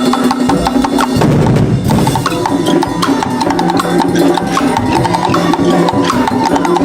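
Background music with busy percussion, wood-block-like strikes and drums over sustained pitched tones.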